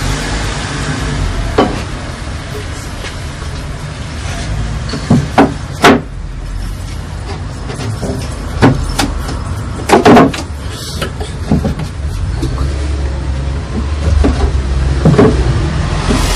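Shop vacuum motor running steadily inside a home-built cyclone dust collector cabinet, with several sharp wooden knocks as the cabinet's top board is handled.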